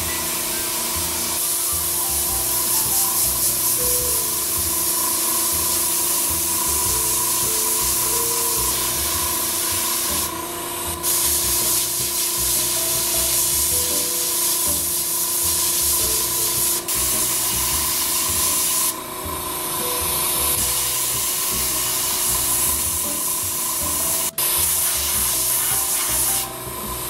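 Paasche H airbrush spraying ink onto a latex mask: a steady hiss of air that breaks off briefly a few times as the spraying stops and starts.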